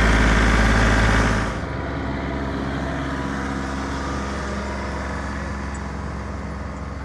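John Deere 3033R compact tractor's three-cylinder diesel engine running steadily as the tractor drives through snow. It is loud and close for about the first second and a half, then drops abruptly to a lower, more distant level.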